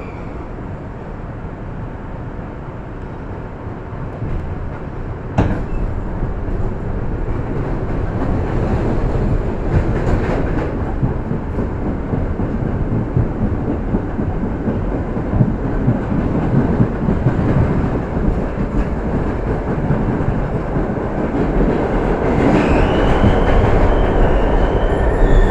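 R62A subway car running between stations, heard from inside the car: a continuous rumble of wheels on track that grows louder, with a sharp clack about five seconds in. A high whine rises in pitch near the end.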